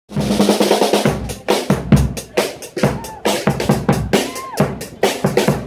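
Marching brass band playing in the street: bass drum and snare beat a steady march rhythm under saxophones and brass horns.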